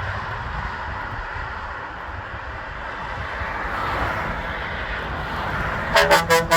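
Truck passing on the road with a steady rush of engine and tyre noise, then near the end its horn starts sounding in a quick run of short, loud blasts.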